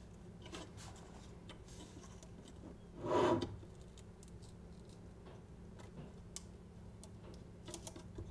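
Faint light clicks and rubs of hands handling a Bitzenburger fletching jig and its clamp on an arrow shaft, with one brief louder rustle about three seconds in.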